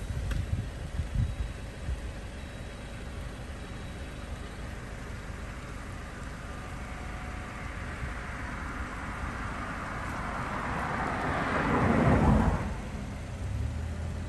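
A vehicle passing on the road: a rush of tyre and engine noise that builds slowly, peaks about twelve seconds in and falls away quickly, over a steady low rumble.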